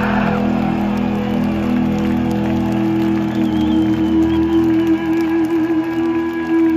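Live rock band holding a final chord that rings out steadily through the arena's sound system, with the crowd cheering faintly underneath.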